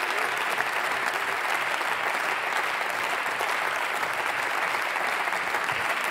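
Steady applause from many parliamentarians clapping their hands.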